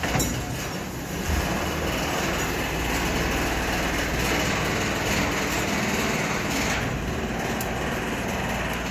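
An engine running steadily, a low even hum that comes in about a second in and holds without change.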